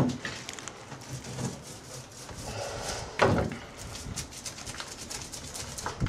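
Gel coat being worked onto a fiberglass boat hull with a brush: irregular dabbing taps and rubbing strokes, with a louder knock at the start and another about three seconds in.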